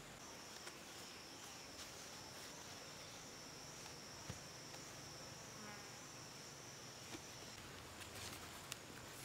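Faint, steady, high-pitched insect call, held on one note for about seven and a half seconds and then stopping. A few soft clicks, then rustling near the end, from vine stakes being handled.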